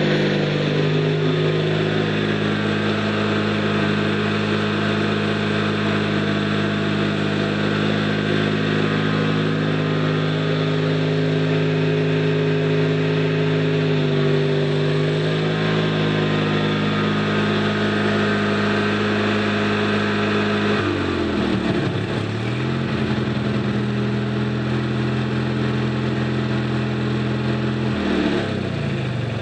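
Noma 18 hp riding lawn mower's engine running steadily as the mower is driven around, its pitch dipping briefly and picking back up about halfway through and twice more near the end.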